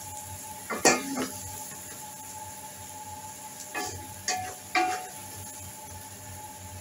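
A spatula scraping and knocking against a metal pot while stirring scrambled egg bhurji: one stroke about a second in and a quick run of three strokes around four to five seconds in.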